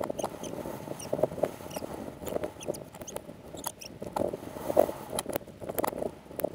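Mountain-bike riding noise, rattles and tyre-on-dirt crunching, played back rewound at speed, so it comes out as rapid squeaky chirps and sharp clicks.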